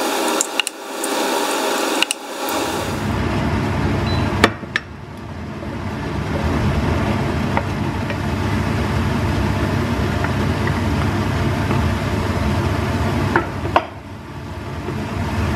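Vegetables and scrambled eggs sizzling in a non-stick frying pan, with a wooden spatula clicking and scraping against the pan a few times. A low hum runs underneath from about two or three seconds in.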